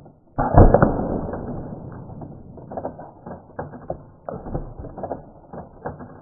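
A paintball striking and bursting an egg on a stake: a sudden loud, muffled hit about half a second in, followed by a long, fading run of irregular clicks and crackles.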